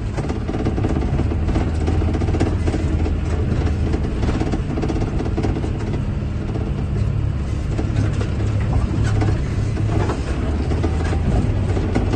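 John Deere 8RX tracked tractor's engine running steadily under load, heard from inside the cab, with floodwater rushing and spraying off the tracks as it ploughs through.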